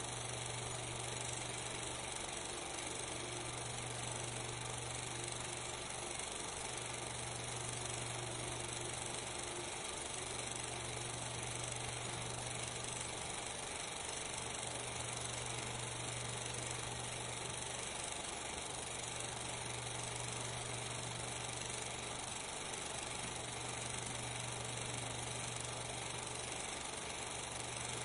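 Steady hiss with a low hum that dips briefly every few seconds: the background noise of a silent 8 mm film transfer, with no soundtrack of its own.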